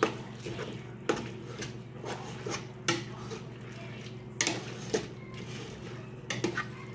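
A spoon stirring spaghetti and tomato sauce in a pot, knocking against the side of the pot about six times at uneven intervals.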